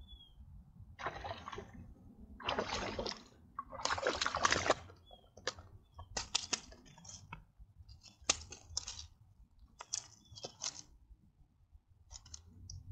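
Water splashing in three short bursts, the loudest about four seconds in, as a freshly caught smallmouth bass thrashes at the surface. This is followed by scattered sharp clicks and ticks.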